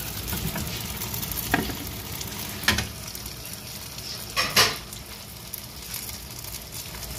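Spice-coated fish pieces shallow-frying in oil in a nonstick wok: a steady sizzle, with a few sharp clicks, the loudest about four and a half seconds in.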